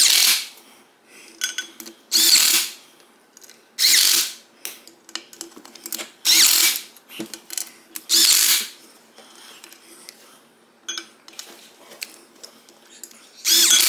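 A power driver with a hex bit runs in short bursts, about five times roughly two seconds apart and once more near the end, driving in the bolts of a wheel's beadlock ring.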